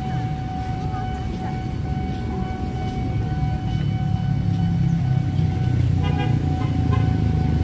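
Street traffic: vehicle engines running close by, growing louder about four seconds in, with a few short horn toots near the end over a steady high tone.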